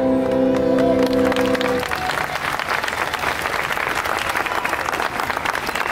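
Recorded music ends on a long held note about two seconds in, as the audience applauds; the clapping carries on after the music stops.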